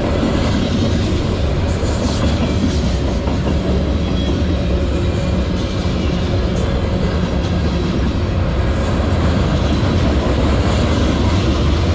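Freight cars of a manifest train, centerbeam flatcars loaded with lumber, rolling steadily past close by: the continuous noise of steel wheels on the rails.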